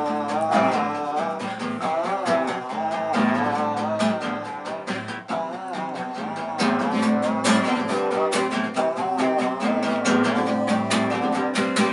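Acoustic guitar strummed in a quick, steady rhythm, with a man's voice singing a wordless melody over it.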